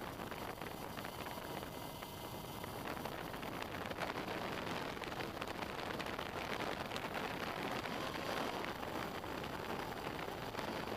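Motors and propellers of a small RC camera aircraft heard through its onboard camera's microphone: a steady noisy rush with a faint steady whine underneath, mixed with wind on the microphone.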